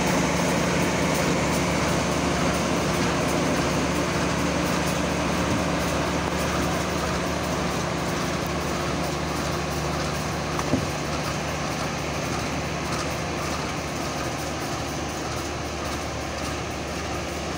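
Stopped diesel passenger train's engines running steadily: a constant low drone with a hum that fades slowly, and one short click about eleven seconds in.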